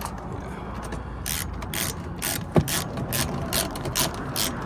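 Hand ratchet with a socket extension clicking in quick, uneven runs as it is swung back and forth to run in the mounting bolt of a rear strut brace. The clicking starts about a second in, and a single sharper knock comes about halfway through.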